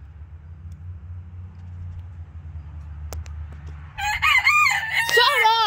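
Rooster crowing once about four seconds in: a loud call of several rising and falling segments, lasting about two seconds. Before it there is only a low steady rumble on the microphone.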